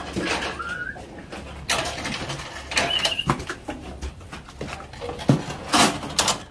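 Nelore cattle being driven through a muddy corral: an irregular run of knocks, thuds and clatter, loudest near the end, with a couple of short rising chirps.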